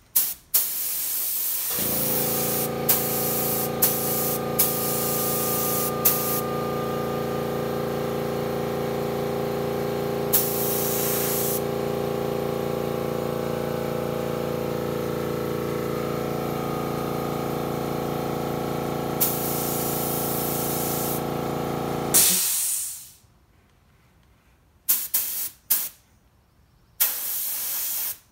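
Iwata LPH 80 spray gun hissing in short bursts as paint is sprayed, over a small 2.6-gallon air compressor that starts running about two seconds in with a steady motor hum and shuts off a few seconds before the end. After it stops, several short spray bursts remain.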